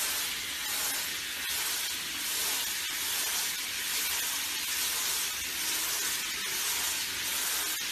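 Steady hiss of water spraying from a handheld shower head during a dog's bath.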